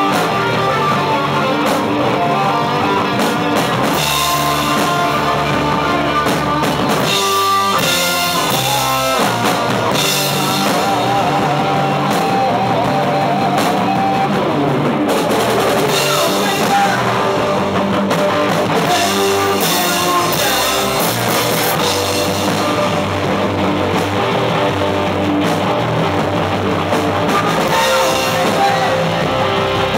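Live rock band playing loud through amplifiers: electric guitar, bass guitar and a drum kit with cymbals, with a short choppy stop-start break about seven seconds in.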